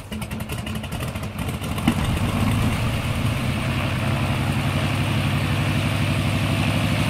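Small propeller plane's piston engine running with a rapid, even firing beat, stepping up in level about two seconds in and holding steady through the takeoff.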